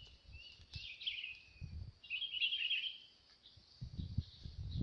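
Birds chirping in short bursts, about a second in and again around two to three seconds in, with low bumps near the end.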